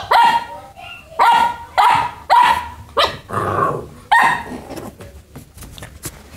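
Boxer puppy barking in play: a quick run of about seven sharp, high yaps over four seconds, one of them rougher and growly. Near the end there are only light clicks and taps.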